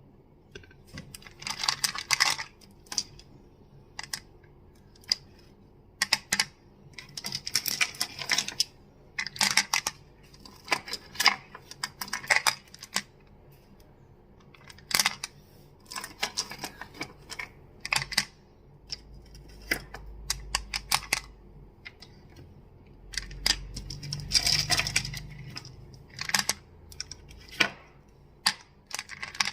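Crystals clicking and clacking against each other, in quick clusters of sharp clicks separated by short pauses.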